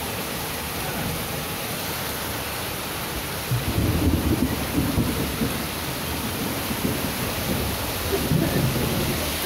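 Heavy rain pouring steadily onto a street, a dense even hiss. A low rumble swells up about three and a half seconds in and again near the end.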